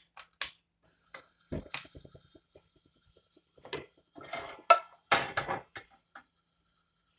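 Cookware and kitchen utensils knocking and clinking as they are handled at the stove. There are a few sharp clicks at the start, a knock about a second and a half in, then a cluster of clatters around four to six seconds in as a wooden spoon is picked up.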